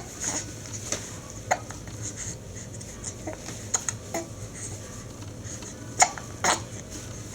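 A nearly seven-week-old baby hiccuping: several short, sharp hiccups spaced irregularly, with the two loudest about six seconds in, half a second apart.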